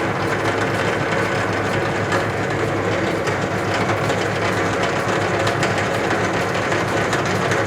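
South Bend 10K lathe running steadily in back gear, its dry, unoiled back gears meshing with a slightly noisy whir and fine rattle. The owner finds no broken or chipped teeth and puts the noise down to dry, dirty gears that need cleaning and oiling.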